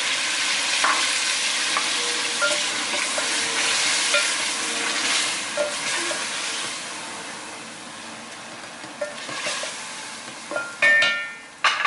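Chicken curry sizzling in an aluminium pot, with a little water just added, while a wooden spoon stirs it. The sizzle fades after several seconds. Near the end come two sharp metallic clanks with a short ring.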